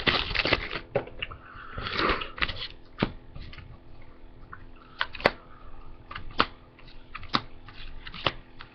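Trading cards being flicked through one at a time, a sharp tick or snap about once a second as each card is moved. In the first two seconds there is some crinkling of the foil pack wrapper.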